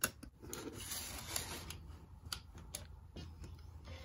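A CD being pressed onto the spindle of a laptop's pop-out optical drive tray and the tray pushed shut: a faint rubbing scrape with a few sharp clicks at the start and in the second half.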